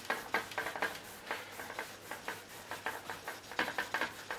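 Easel clicking and creaking in quick, irregular ticks, several a second, as a cloth rubs oil pastel into the paper clipped to it.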